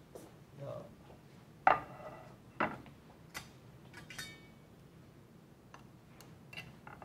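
Plates and cutlery clinking: a handful of sharp knocks with a short ring, the loudest about a second and a half in, then fainter taps near the end.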